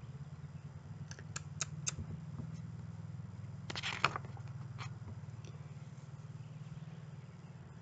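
A large picture book being handled and its page turned: a few light clicks, then a louder paper rustle about four seconds in, over a steady low hum.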